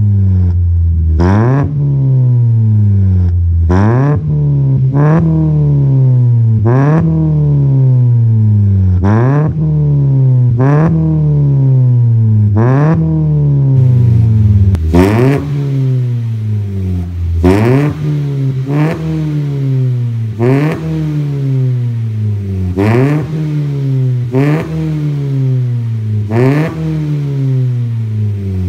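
A 2013 Ford Fiesta's engine free-revving through a full exhaust system. It is blipped sharply over and over, about every one to two seconds, each rev climbing quickly and then falling back toward idle.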